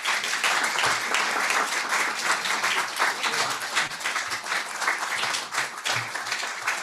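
Audience applauding steadily in a room.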